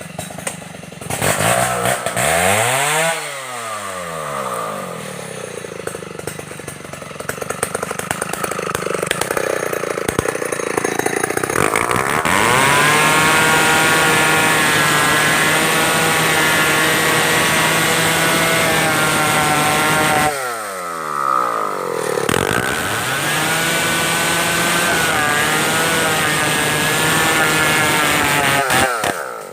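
Stihl 070 two-stroke chainsaw running hard, its pitch dropping and revving back up steeply about three seconds in and again about twenty-one seconds in, with long steady stretches at high revs in between.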